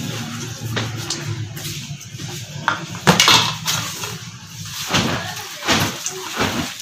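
Hand mixing a shredded potato and chicken pakora mixture with flour and spices in a steel tray: squishing and scraping of the food against the metal, loudest about three seconds in, with a few more sharp scrapes near the end.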